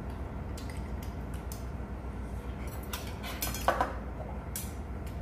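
Metal spoons and chopsticks clinking against bowls and dishes while eating, in scattered light clicks. The loudest is a ringing clink of metal on a metal bowl about three and a half seconds in. A steady low hum runs underneath.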